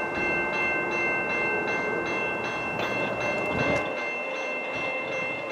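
Railway level-crossing warning bell ringing steadily at about two strikes a second, each strike renewing the same ringing tones, warning of an approaching train. A brief low thump comes about three and a half seconds in.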